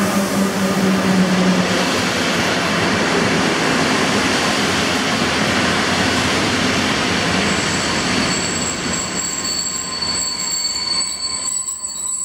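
PKP Intercity EU160 electric locomotive and its passenger coaches rolling past close by along the platform, a steady loud rush of wheels on rail. From about halfway, thin high-pitched squealing joins in as the train slows into the station.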